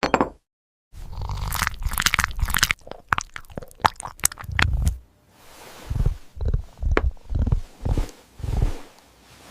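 A cat chewing food close to the microphone: a few seconds of quick, crisp crunches, then slower, duller chews about twice a second.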